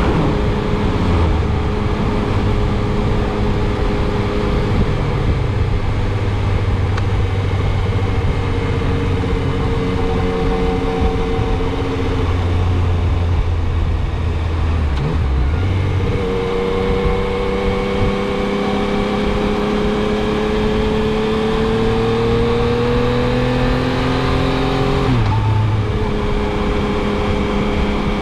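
Motorcycle engine running under way with wind noise over the rider. The engine note holds steady, then rises slowly for several seconds as the bike speeds up and drops sharply near the end.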